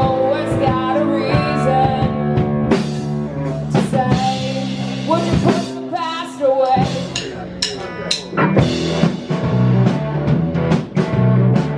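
Live rock band playing: drum kit, electric guitar and bass in a loud instrumental passage.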